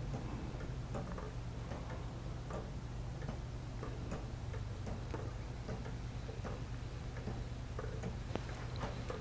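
Deadbeat escapement of a 3D-printed PLA pendulum wall clock ticking steadily, a sharp tick a little faster than once a second, over a steady low hum.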